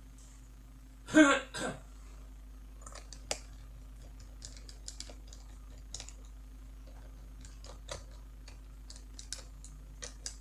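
Small scattered clicks and scrapes of a screwdriver tightening the screws of a laptop's copper-pipe heatsink as it is refitted to the motherboard. A person clears their throat once about a second in, the loudest sound.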